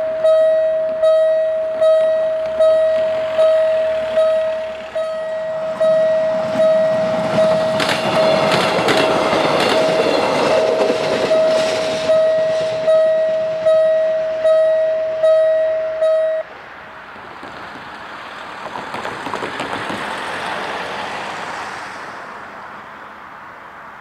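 Level-crossing warning bell ringing in a steady rhythm, about one strike every 0.8 seconds, and cutting off suddenly about two-thirds of the way through. Midway a passenger train passes over the crossing with a rush of wheel noise and clatter. After the bell stops, a softer rise and fall of passing traffic.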